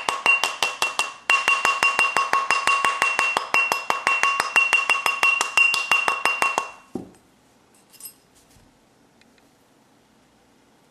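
Rawhide mallet tapping a copper wire ring on a steel ring mandrel, fast and even at about seven taps a second, each tap making the steel mandrel ring. The tapping stops a little before seven seconds in.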